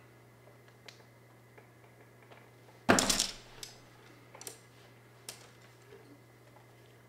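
Paintbrushes clattering as a hand sorts through a bundle of them: a loud rattle of clicks about three seconds in, then a few lighter single clicks.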